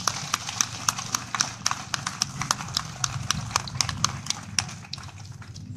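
Applause from a small outdoor crowd, thin enough that single claps stand out, several a second, thinning out near the end.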